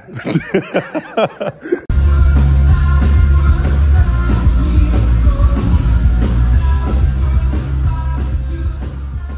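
A man's voice laughing, then an abrupt cut about two seconds in to a loud live rock band with heavy bass and a singer on a microphone, fading toward the end.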